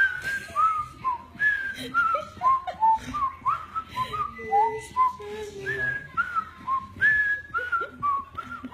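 A man whistling a run of short notes, about two a second, each sliding up or down in pitch.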